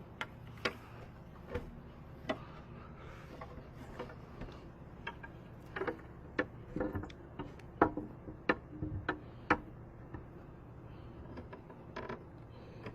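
Irregular light clicks and taps of a long-reach car lockout tool being worked inside a car door to hook the handle, more frequent toward the middle, over a steady low hum.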